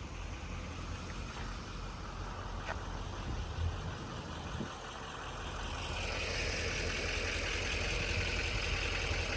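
A motor vehicle's engine running with a steady low rumble, growing louder from about six seconds in.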